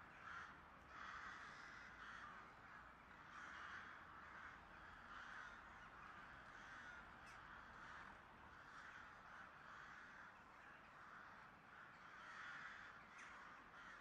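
Crows cawing faintly, one harsh call after another, about one or two a second.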